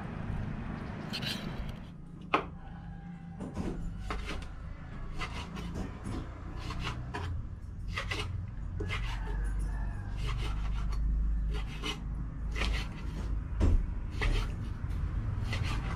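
A kitchen knife cutting again and again through rubbery flesh on a plastic cutting board, with irregular strokes about one or two a second. Before that, for the first couple of seconds, the knife scrapes on a rock.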